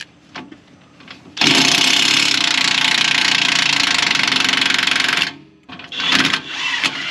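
Cordless impact wrench hammering for about four seconds to break loose an 18 mm lower control arm bolt. After a brief pause there is a short burst, and it starts hammering again near the end.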